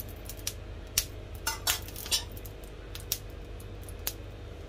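Scattered light clinks and ticks of a metal spoon on a hot, oiled iron tawa as the oil is spread, over a steady low hum.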